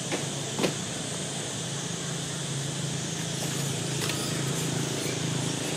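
Steady low mechanical hum over outdoor background noise, with a sharp click a little over half a second in.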